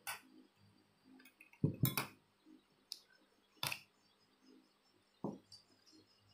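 Spoon and dishes clinking and knocking on a dining table as bowls and plates are handled: about five separate clinks, the loudest a dull thud of a dish set down about two seconds in.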